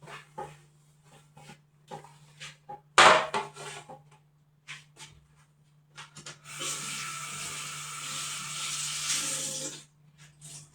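Household cleaning sounds. Light clicks and knocks, with a sharp clatter about three seconds in. Then what sounds like a tap running for about three seconds before cutting off, all over a steady low hum.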